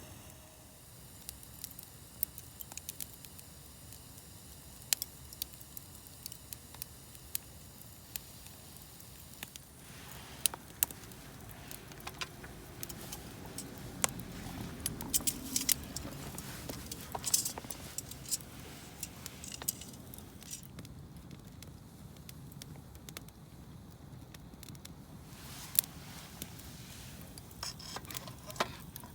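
Wood fire crackling, with irregular sharp pops and snaps that come thickest about halfway through.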